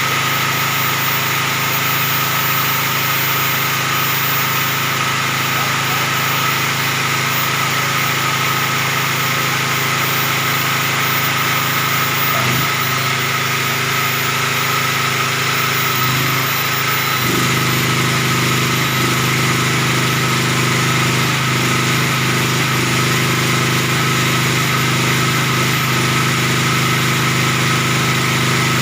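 7000 W portable generator's engine running steadily. A little past halfway through its note shifts and becomes fuller in the low end.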